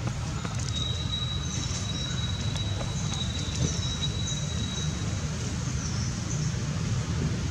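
Outdoor background noise: a steady low rumble, with a thin, high, steady whine from about one to five seconds in, and short high chirps repeating about once a second.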